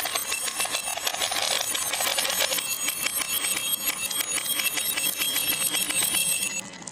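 Many marbles clattering down a marble run track, a dense stream of quick clicks with a faint metallic ringing over it; it gets quieter and duller about six and a half seconds in.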